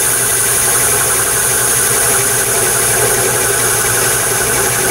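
Metal lathe running at about 450 RPM while a right-hand facing tool takes a roughing cut across the end of 1¼-inch steel bar, feeding in from the outside toward the center: a steady machine hum with the noise of the cut.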